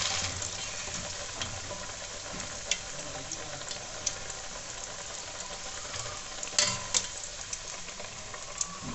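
Vegetable tikkis (besan batter with cabbage and onion) sizzling steadily as they deep-fry in hot oil in a steel kadhai. A metal spatula clicks and scrapes against the pan several times, with two sharper knocks about two-thirds of the way through.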